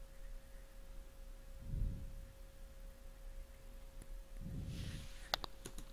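Faint steady electrical whine of the recording setup under low room noise, with two soft low rumbles. A few sharp mouse clicks come near the end.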